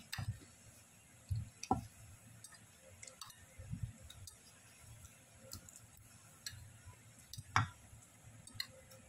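Spatula stirring dry flour in a stainless steel bowl: scattered light clicks and taps of the spatula against the metal, with one louder knock late on.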